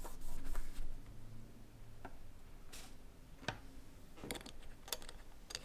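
A tissue rubbing over an aluminium beam as it is wiped down with isopropyl alcohol, then several light clicks and taps as small items are handled on a tabletop.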